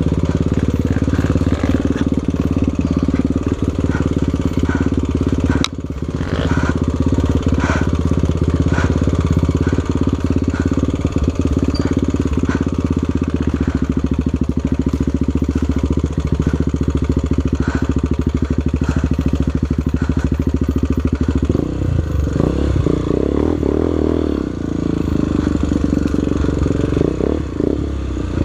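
A single-cylinder four-stroke trail motorcycle engine running steadily under way, with scattered knocks and rattles. In the last quarter the revs rise and fall unevenly.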